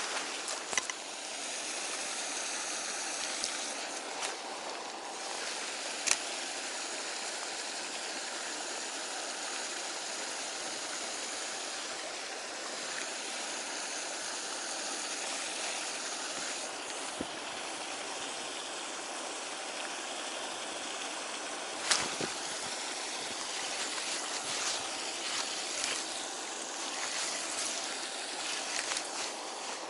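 Steady rush of flowing water, with a few sharp clicks on top: one about six seconds in and a louder one a little past twenty seconds.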